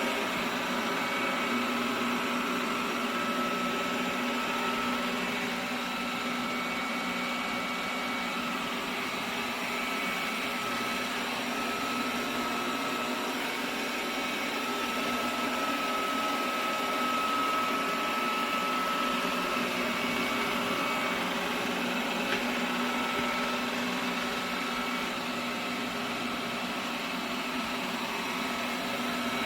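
Lubluelu L20 robot vacuum running, its suction motor giving a steady hum with a few constant higher tones over an even rushing noise.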